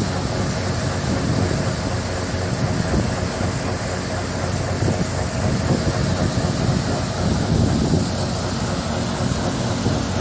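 John Deere 6620 combine's diesel engine running steadily while its unloading auger pours grain into a gravity wagon.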